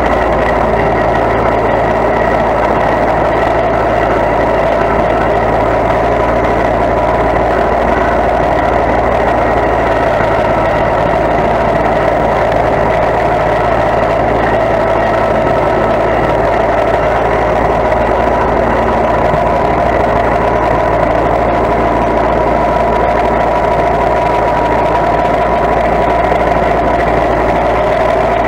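Small red garden tractor's engine running steadily at an even speed, heard close up from the seat.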